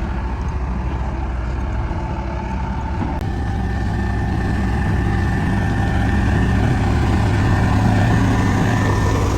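Heavy diesel engine of road-construction machinery running steadily, growing a little louder from about three seconds in, with a faint whine joining it.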